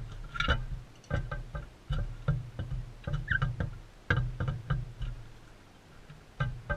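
Irregular sharp taps and knocks close to the microphone, several a second, typical of crimson rosellas pecking and shuffling at seed on a feeder, with one short squeak about three seconds in.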